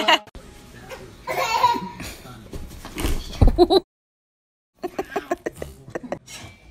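People laughing, in two stretches separated by about a second of silence.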